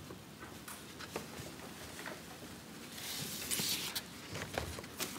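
A picture card sliding out of a wooden kamishibai stage, with rustling and scraping of card against wood and a few small knocks; the rustle is loudest about three seconds in.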